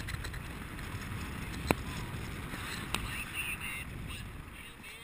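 Wind rushing over a harness-mounted camera's microphone in paraglider flight, a steady low rumble. A sharp click comes about a third of the way in, and a fainter one just past the middle.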